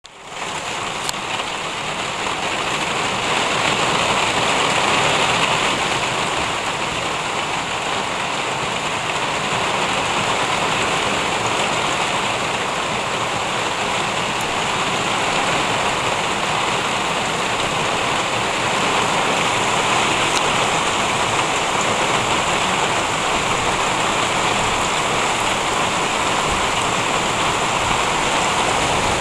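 Heavy rain falling in a steady downpour.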